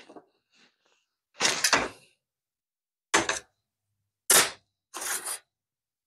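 A long steel straightedge being laid down and shifted on a vinyl sheet on a work table: four short knocks and scrapes about a second apart.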